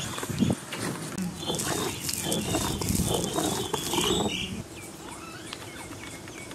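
Stone rollers rocked back and forth on stone grinding slabs (ammikkal), grinding dried red chilli and other spices: a rough, rolling scrape of stone on stone. It drops to a softer level about four and a half seconds in.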